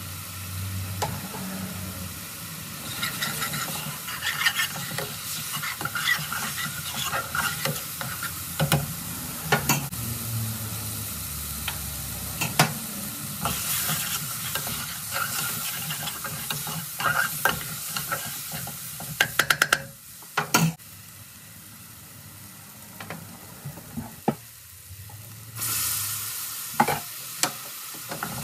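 Curry frying and sizzling in a hot pan while a utensil stirs it, scraping and tapping against the pan many times. The sizzle dies down for a few seconds about two-thirds of the way through, then surges back.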